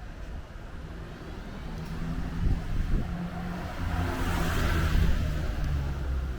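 A motor vehicle passing close by on the street. Its engine hum changes pitch in steps, and its noise builds to a peak about four to five seconds in, then fades.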